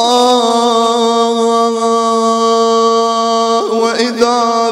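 A man's voice chanting a mourning lament, holding one long steady note for about three and a half seconds, then turning through a few quick ornamented pitch changes near the end.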